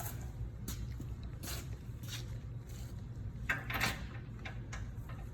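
A few scattered knocks and clinks of tools and parts being handled during the hub and brake work, the loudest cluster just under four seconds in, over a steady low hum.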